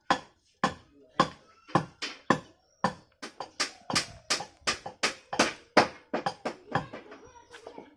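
Repeated hammer blows on metal, each with a short ring. They come about two a second at first, quicken to about three a second, then fall to lighter taps near the end.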